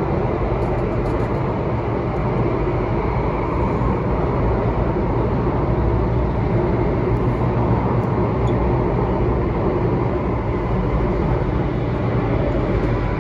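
Alstom Metropolis C830C metro train running at speed through a tunnel, heard from inside the front car: a steady rumble of wheels on rail with a low hum.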